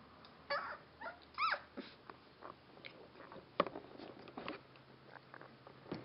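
Twelve-day-old Rhodesian Ridgeback puppies whimpering, with a few short high squeaks that bend in pitch in the first two seconds. Soft rustling and clicks follow, with one sharp click about halfway through.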